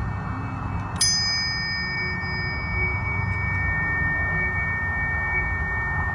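A planetary tuning fork struck about a second in: a brief metallic ping with quickly fading high overtones, then a steady high ringing tone that sustains, over a constant low background hum.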